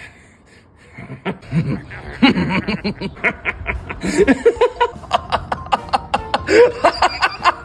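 A person laughing in a long fit of rapid bursts, starting about a second in and carrying on without words.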